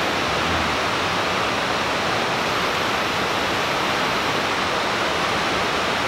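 Steady rushing background noise at an even level with no breaks.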